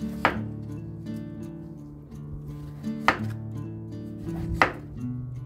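Chef's knife slicing through a peeled zucchini and knocking on a wooden cutting board, three sharp strokes spaced a second and a half to three seconds apart.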